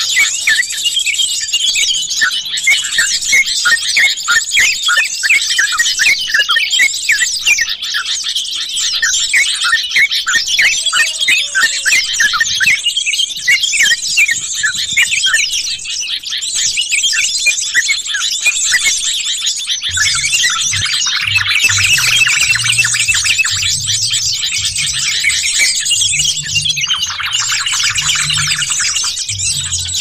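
A dense chorus of yellow-vented bulbuls (trucukan) chattering, with many rapid chirps overlapping at once. These are the noisy flock calls used to lure wild birds. About two-thirds of the way in, a low pulsing thud starts underneath.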